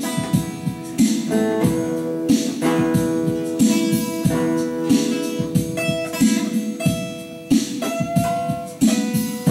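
Twelve-string acoustic guitar being played, with strummed chords about once a second and sustained notes ringing between them. A few notes bend upward near the end.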